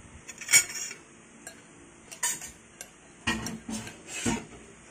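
Utensils clinking and knocking against a ceramic bowl: a handful of separate short clinks, the loudest about half a second in.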